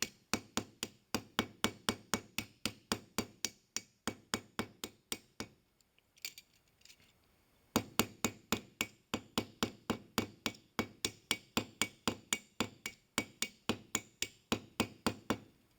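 Ball-peen hammer tapping lightly on the end of a brass rod pin, a steady run of about three taps a second, mushrooming the pin over to lock the brass barrel hinge. The tapping stops for about two seconds around the middle, then starts again.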